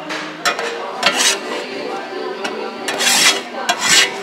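Metal kitchen utensils scraping and clattering on steel, a handful of short rough strokes, the loudest about three seconds in.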